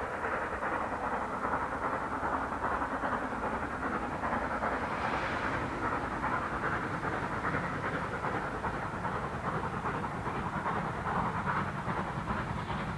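Steam locomotive working hard, a steady run of rapid exhaust beats.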